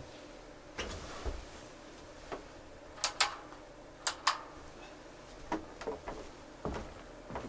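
A person getting up from a metal workshop stool, handling things on a wooden workbench and walking off: a string of separate knocks, clicks and footsteps, the loudest two quick pairs about three and four seconds in.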